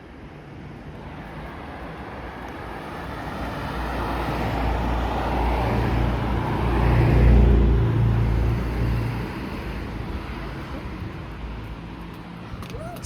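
A motor vehicle passing by on the road, its engine and tyre noise growing louder to a peak about seven seconds in and then fading away.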